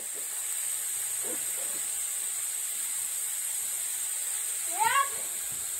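Steady high-pitched chorus of insects, an unbroken shrill hiss, with one short rising call about five seconds in.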